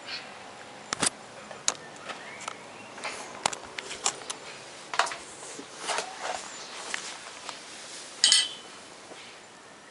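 A rat scrabbling and rustling close by: irregular sharp clicks and scratches, the loudest about eight seconds in.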